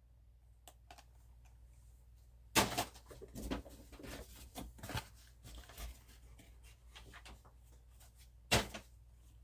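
Scattered handling noises of diecast packaging being moved: a few short rustles and knocks, the loudest about two and a half seconds in and another sharp one near the end.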